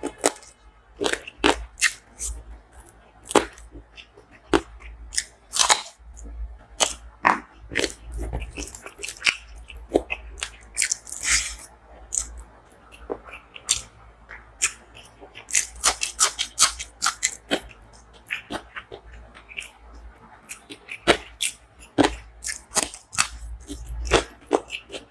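A person chewing and biting food close to the microphone, with many sharp, irregular crunches.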